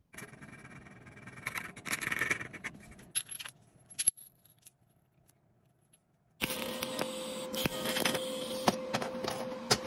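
Small pieces of sheet steel clinking and scraping against a steel table as they are handled. After a pause of about three seconds, a TIG welding arc starts, a steady buzzing hiss with occasional clicks as filler rod is fed into the weld.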